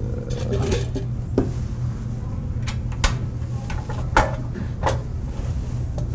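Scattered clinks and knocks of pans and utensils being handled in a restaurant kitchen, about six sharp ones, over a steady low hum.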